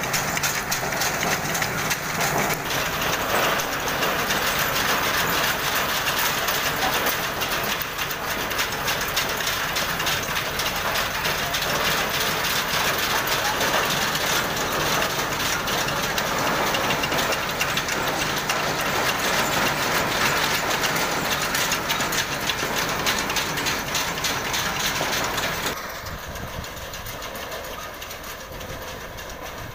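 Tractor-powered homemade garlic harvesting machine running: a steady, dense mechanical clatter that becomes quieter and duller about 26 seconds in.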